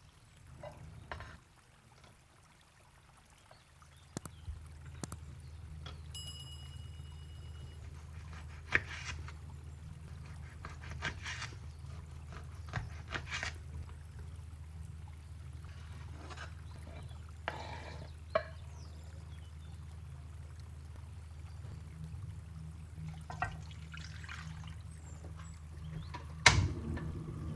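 Kitchen preparation sounds: scattered clinks and knocks against cookware with some liquid pouring and trickling, over a steady low hum that starts about four seconds in. An electronic beep sounds for about two seconds shortly after, and a loud clunk comes near the end.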